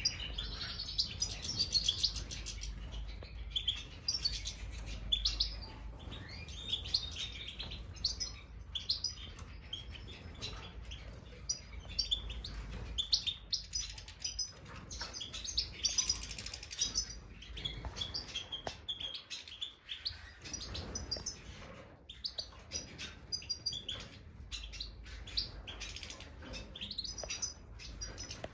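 Several European goldfinches of the large Stieglitz Major form twittering: a dense run of short, high chirps that overlap and go on throughout.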